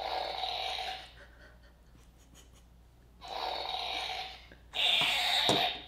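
Squeakee balloon dog toy's electronic snoring: three breathy, squeaky snores that sound like air squeezed from a balloon, the last one loudest. The snoring is the toy's sleep mode after being left alone.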